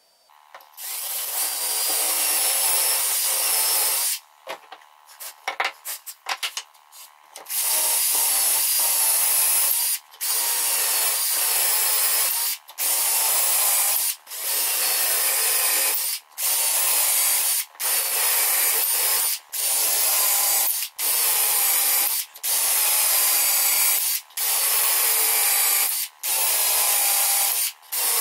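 Cordless drill boring dowel holes into hornbeam boards through a metal doweling jig. It runs in short bursts of about a second and a half each, with brief pauses between holes. About four to seven seconds in there is a run of clicks and knocks instead of drilling.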